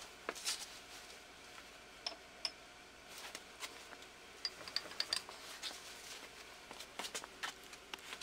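Scattered light metallic clicks and clinks, some with a short high ring, as the levers and handles of a freshly reassembled 1943 Hendey lathe apron are worked by hand to check that everything works. The clicks come unevenly and bunch up a few seconds in and again near the end.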